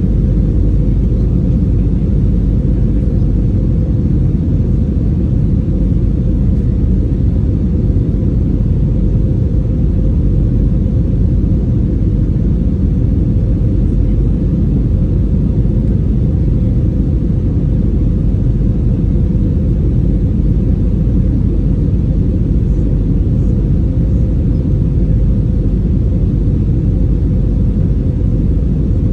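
Steady low rumble of engine and airflow noise inside the cabin of an Airbus A320 airliner in flight.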